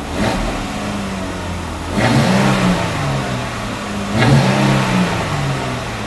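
Jeep Wrangler JK's 3.6-litre V6 blipped three times through a MagnaFlow Competition 2.5-inch stainless steel single-exit cat-back exhaust. Each rev rises sharply and falls back to idle.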